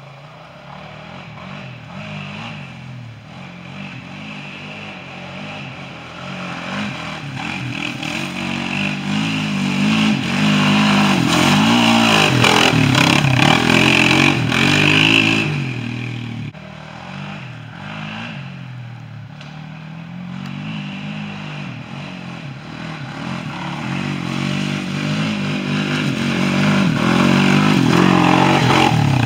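Small sport quad (ATV) engine revving up and down as it is ridden, its pitch rising and falling repeatedly and growing louder as it comes closer. The sound drops off suddenly about halfway through, then builds again to full volume near the end.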